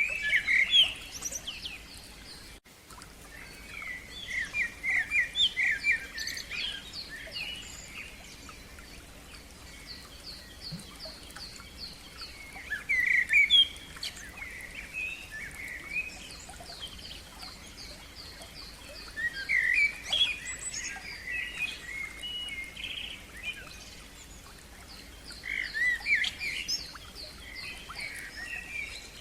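A songbird singing in separate phrases every few seconds: varied chirps, trills and quick runs of repeated high notes, with short pauses between phrases.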